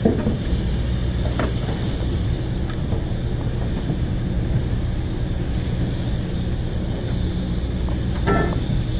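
Steady low drone of a boat's machinery running, an even hum with no change in pitch.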